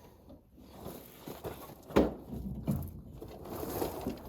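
Quiet rustling and scraping handling noise, with one sharp knock about two seconds in.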